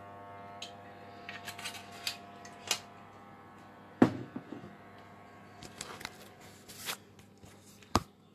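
A steady low hum under scattered small clicks and rustles, with a sharp knock about four seconds in. Near the end come knocks and rubbing as the phone that is recording is picked up and turned.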